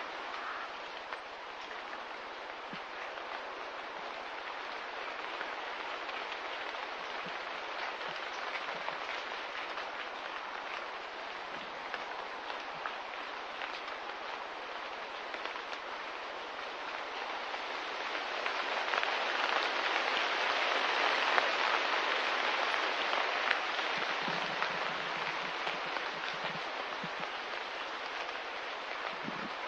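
Steady rain patter, a dense hiss of falling drops, swelling louder about two-thirds of the way through before easing back.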